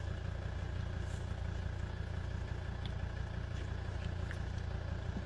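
Steady low machine hum with a faint high whine over it.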